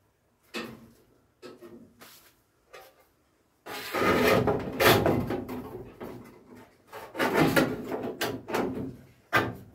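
Sheet-steel bubble-arch panels scraping and rubbing against the wheel-arch bodywork as they are offered up and pushed into place by hand, with a few light knocks and two long stretches of scraping, then a sharp knock near the end.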